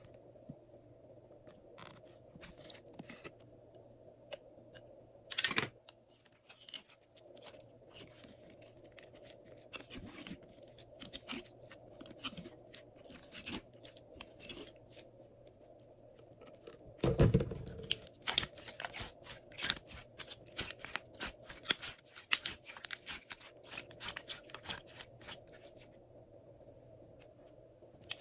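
Glossy slime worked by hand, giving sticky clicks and pops: scattered at first, then a low thump about seventeen seconds in, followed by a dense run of quick clicks.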